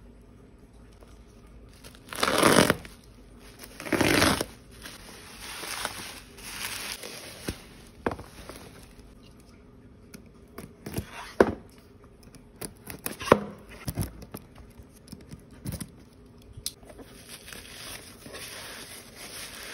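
Bubble-wrapped parcel being torn open, with two loud rips about two seconds apart near the start. Scattered sharp clicks follow, and plastic bubble wrap crinkles as it is handled toward the end.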